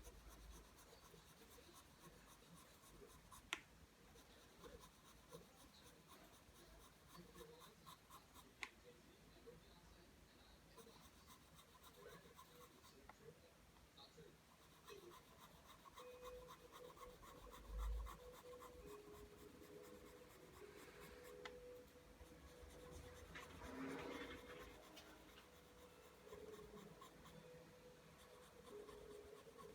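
Pencil drawing lines on paper: faint, steady, repeated scratching strokes, with two sharp ticks a few seconds in and a low thump just past the middle.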